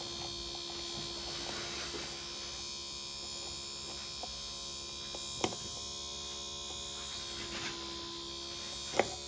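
Small DC motor running steadily on the output of a buck converter module, a constant electric hum. Two short sharp clicks about halfway through and near the end.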